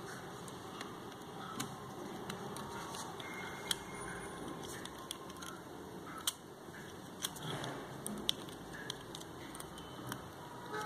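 Small tools and plastic parts of a compact camera's lens unit clicking and tapping now and then, a few sharp ticks among them, over a steady background hiss.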